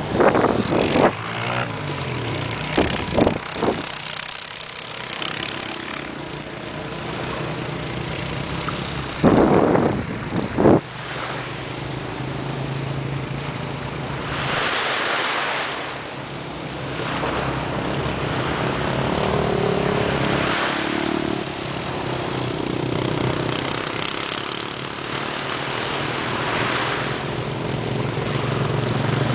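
Surf washing on the shore and wind on the microphone, rising and falling in slow swells, over a steady low engine hum from a distant motorboat. Wind buffets the microphone in a few loud bursts in the first ten seconds or so.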